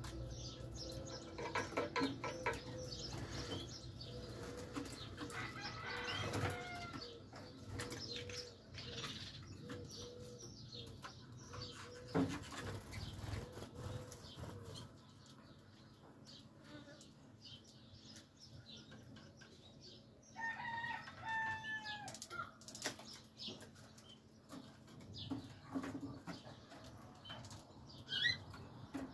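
Malinois (Waterslager) canaries fluttering and flapping their wings as they fly between perches in an aviary, with short bursts of chirping calls now and then, the clearest about two-thirds of the way through.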